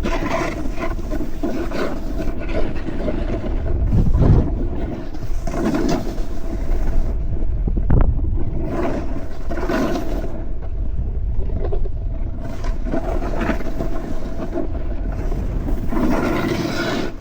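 Snowboard carving down a ski slope: the board's edge scraping over snow, swelling and easing through the turns, over a steady low rumble of wind on the camera's microphone.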